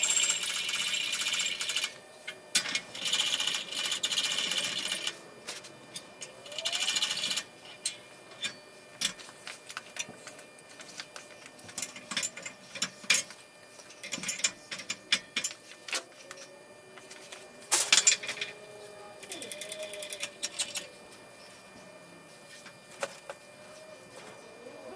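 A bottle jack in a shop press being pumped by hand, in bursts of metallic rattling and clicking. Separate clicks and knocks of metal parts being handled come between the bursts.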